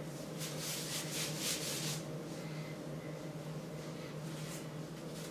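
Coghlan's mesh bug jacket rustling as it is pulled on and the hood is adjusted, with rustles over the first two seconds and again near the end, over a steady low hum.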